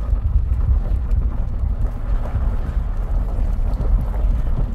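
A car driving slowly on a gravel road, heard from inside the cabin: a steady low rumble of engine and tyres on the road.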